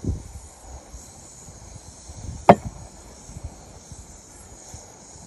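A small drinking glass set down on the table: one sharp knock with a short ring about two and a half seconds in, over a steady faint outdoor hiss.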